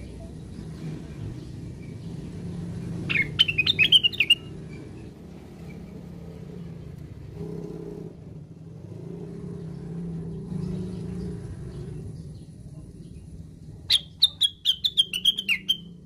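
A caged cucak wilis (orange-spotted bulbul) gives two short bursts of quick, sharp chirping notes, one about three seconds in and one near the end, each lasting about a second and a half.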